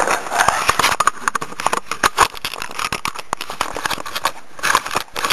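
Loose Lego pieces clattering and clicking together as they are handled and shuffled, a dense run of small plastic clicks and rattles.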